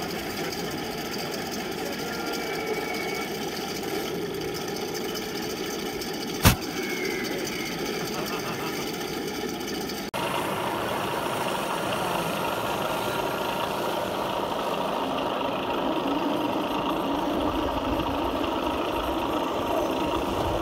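Radio-controlled model tanks running with a steady engine-like hum, broken by one sharp crack about six and a half seconds in.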